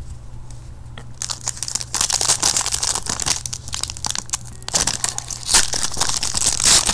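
Foil trading-card pack crinkling as it is picked up and handled, the crackle growing louder about five seconds in as the wrapper is worked open.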